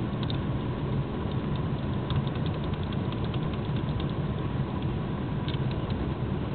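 Light clicks of a JVC car stereo's rotary knob being turned, coming in scattered runs over a steady low rumble of car cabin noise, with the stereo's music off.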